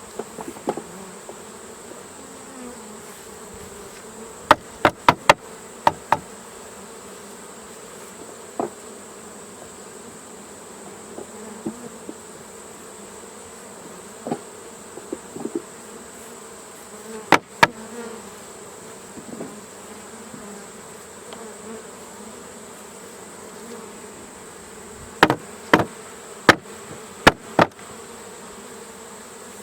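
Honeybees buzzing steadily around open hive boxes, with sharp knocks of hive equipment being handled: a quick run of four about five seconds in, two more a little past the middle, and several near the end.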